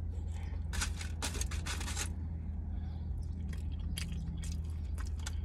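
Close-miked eating sounds: chewing a chicken taco and picking at it with the fingers, with three crunchy, crackly bursts about a second in and scattered small clicks later, over a steady low hum.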